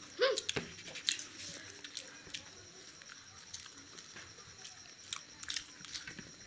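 Two people eating fried pakoras: biting and chewing mouth sounds, with a scatter of short clicks.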